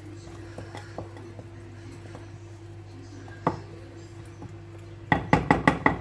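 A spoon rapped against the rim of a mixing bowl to knock the mixture off it: a single knock about three and a half seconds in, then from about five seconds a quick run of sharp clinks, about six a second. A steady low hum lies underneath.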